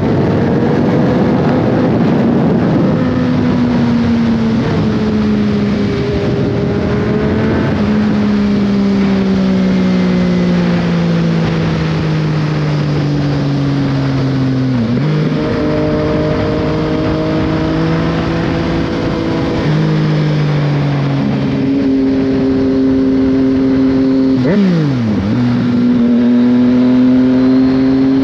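Yamaha Tracer 900 GT's three-cylinder engine running through an Akrapovic exhaust on the move, its note falling slowly as the bike slows, dipping sharply and picking up again twice, then climbing near the end. A steady rush of wind goes on underneath.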